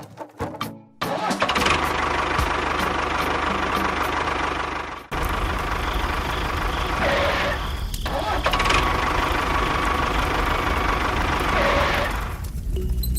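A small motor running with a steady whine, starting about a second in, faltering briefly around five seconds in and fading out near the end.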